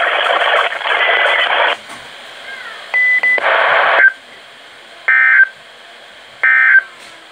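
Emergency Alert System SAME data bursts over NOAA Weather Radio, buzzy screeching digital tones: a long burst at the start, another about three seconds in, then two short bursts near the end, typical of the end-of-message code. Faint radio hiss fills the gaps between bursts.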